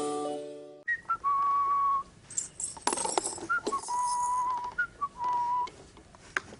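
Whistling: three held notes at about the same pitch, each opening with a short upward flick, with a few light clatters and clicks in between.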